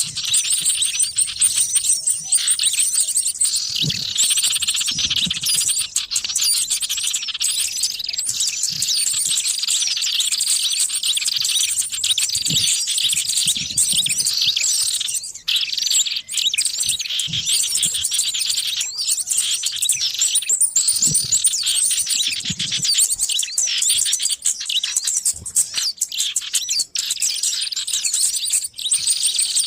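A dense chorus of many small birds chirping and twittering rapidly and without pause, with quick up-and-down notes overlapping one another. It is a lure recording of noisy small wild birds, played to draw in small birds.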